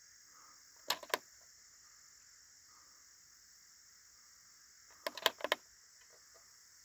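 Short clicks from a Moultrie game feeder's timer keypad as its buttons are pressed: two about a second in, then a quick run of four or five around five seconds in. A steady insect chorus runs underneath.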